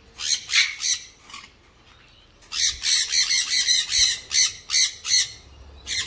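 Sun conures screeching: four harsh, shrill calls in the first second and a half, then a rapid string of about a dozen from about two and a half seconds in.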